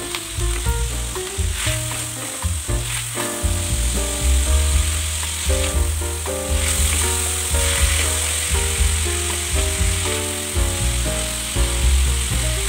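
Meat and vegetables sizzling in a hot frying pan as they are stir-fried, a steady hiss. Background music with a bass line and a melody plays over it.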